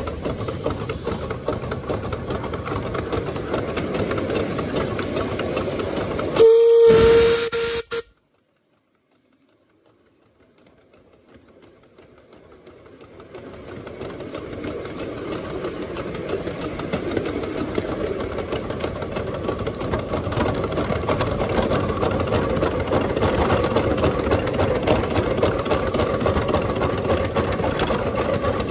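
Miniature steam locomotive running steadily along its track, heard from the footplate. About six seconds in it sounds its whistle loudly for under two seconds, one steady note; the sound then cuts out suddenly and fades back in over several seconds.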